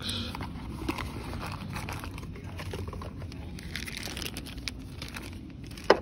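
Handling noise: crinkling and rustling with scattered small clicks, and one sharp, loud click just before the end.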